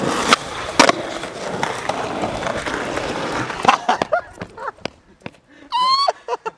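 Skateboard wheels rolling on rough asphalt, with a few clacks of the board, then a louder clack a little before four seconds in, after which the rolling stops. A few lighter knocks follow, and near the end there is a brief high voice call.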